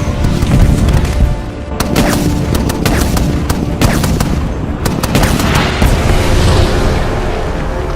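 Heavy weapon fire and explosion booms, a deep rumble broken by several sharp blasts, over a dramatic film score.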